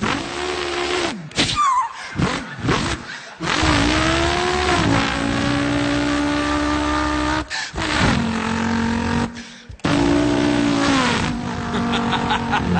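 A man imitating a car engine with his voice: revving notes that glide up and down, long held notes like a car at speed, with short breaks between them like gear changes.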